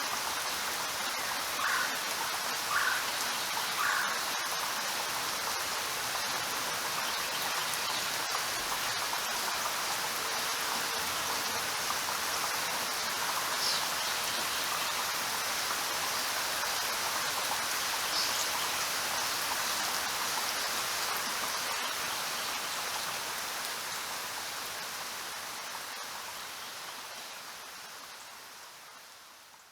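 Steady rain making an even hiss, with three brief sharper sounds near the start. It fades away over the last several seconds.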